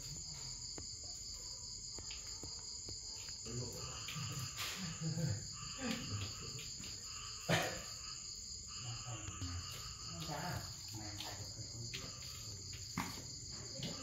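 Insects chirring in a steady, unbroken high-pitched drone, with a single sharp knock a little past halfway.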